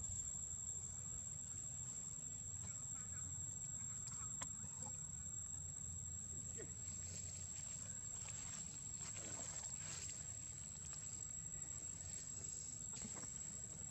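Outdoor forest ambience: a steady high-pitched insect drone over a constant low rumble, with a few faint brief rustles or distant animal sounds.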